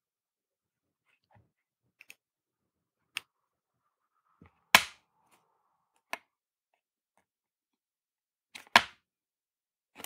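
A small printed circuit board rapped sharply on a tabletop several times, the loudest knocks about halfway through and near the end: molten solder being knocked out of a through-hole that solder has clogged.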